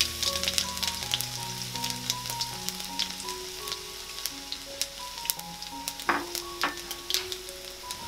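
Chopped garlic sizzling in hot cooking oil in a wok, a steady hiss with frequent small crackling pops, over soft background music.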